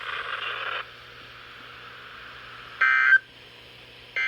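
EAS/SAME end-of-message data bursts from a NOAA Weather Radio broadcast: short, harsh digital warbles of about a third of a second each, the first about three seconds in and the next starting about a second and a half later. This signals the end of the weekly test. Before them, radio hiss cuts off just under a second in.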